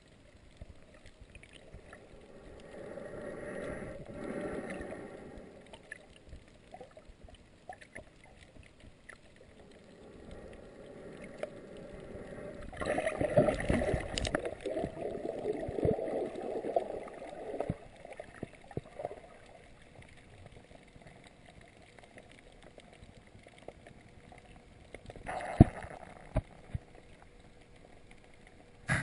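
Muffled underwater water noise picked up by a camera moving through the sea, with gurgling swells that come and go, a louder stretch in the middle, and scattered clicks and knocks.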